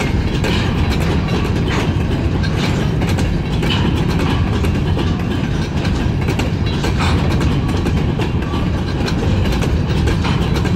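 Covered hopper cars of a long freight train rolling past close by: a steady low rumble of steel wheels on rail, with irregular clicks and clacks throughout.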